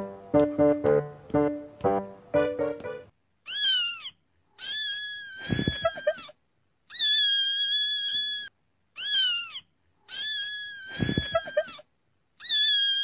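A kitten meowing: six separate high-pitched cries, each dipping in pitch at its start and then held, with a low thud under two of them. A plucked melody of background music plays for the first three seconds.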